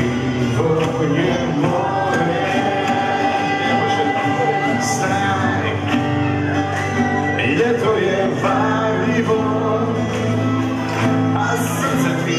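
A children's ensemble of nylon-string classical guitars playing a song together, with singing.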